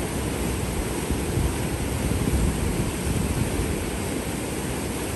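Wind buffeting the microphone: a steady rushing noise with rumbling low gusts, strongest around the middle.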